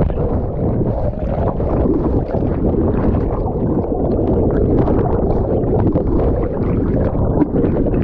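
Turbulent river water heard underwater: a loud, muffled rushing and bubbling with no highs, as a camera plunges into a churning waterfall pool with a jumper.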